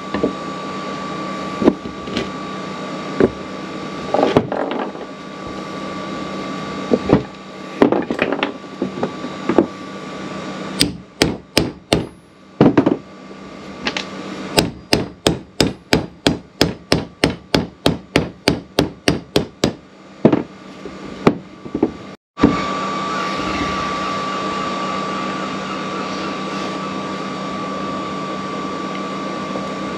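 Hammer tapping a socket to drive a rubber oil seal into an outboard gearcase's bearing carrier. Scattered single taps come first, then a quick even run of light taps at about two a second. After a sudden break, a steady hum.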